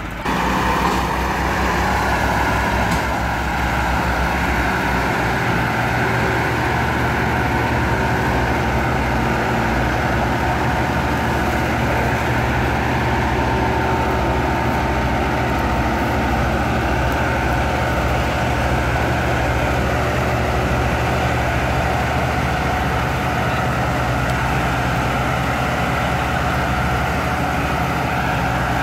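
Massey Ferguson 375 tractor's three-cylinder diesel engine running hard under heavy pulling load. It throttles up abruptly just after the start and then holds a steady, loud note while it tows a loaded trolley out of soft ground.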